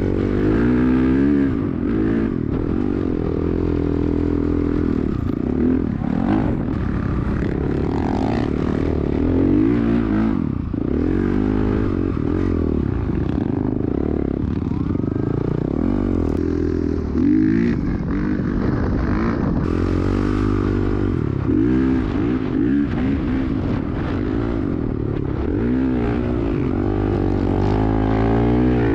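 Dirt bike engine being ridden hard, its pitch rising and falling over and over as the throttle is opened and rolled off.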